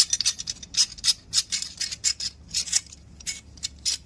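Screws being tightened on the machine's parts with a hand tool: a quick run of short clicks, about four a second.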